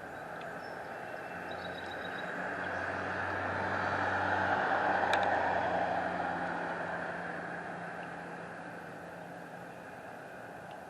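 A road vehicle driving past, its noise and low engine hum building to a peak about halfway through and then fading away.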